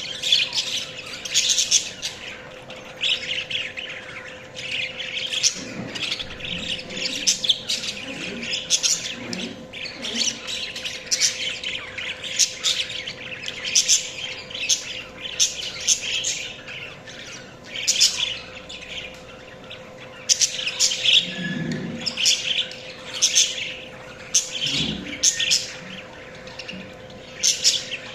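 Budgerigars chirping and warbling, a busy stream of quick high chirps with short chattering runs. A faint steady hum lies underneath.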